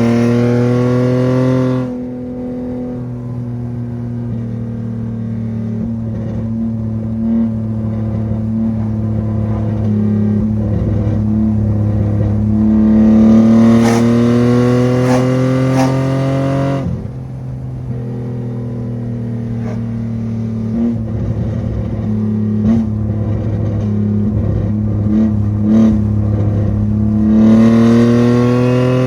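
BMW E34 running with a catless exhaust, pulling hard three times with the engine note climbing, then dropping off sharply when the throttle is lifted. Between the pulls it runs steadily with scattered short crackles and pops from the exhaust.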